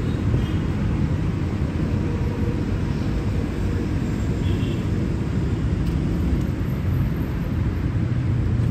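Outdoor city ambience: a steady low rumble with no distinct events.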